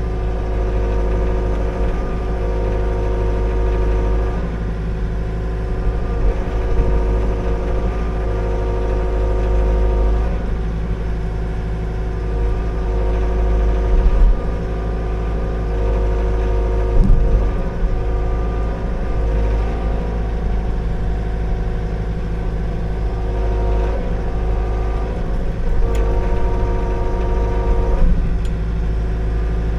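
Liugong 9051F mini excavator's diesel engine running under working load, its pitch and strength rising and falling as the hydraulics are worked. A few sharp clunks in the second half.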